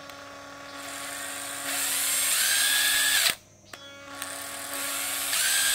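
Small National cordless oil-pulse impact driver running with no load in two trigger pulls, a motor whine that cuts off abruptly. The first run stops about three seconds in and the second starts half a second later. Each run picks up speed and gets louder partway through.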